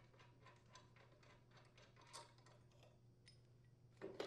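Faint, scattered metal clicks and clinks as a rotary mower blade and its blade support are handled and lifted off, with a louder clatter about four seconds in.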